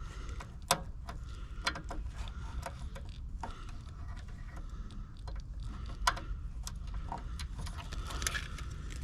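Small clicks and rattles of wire connectors and leads being handled while sensor wires are moved onto a replacement heat pump defrost control board, with two sharper snaps, one under a second in and one about six seconds in.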